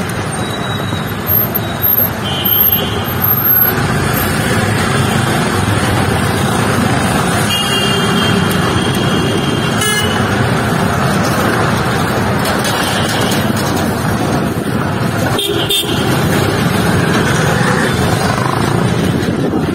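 Busy street traffic: a steady rumble of engines and road noise, with vehicle horns honking about four times, the longest in the middle.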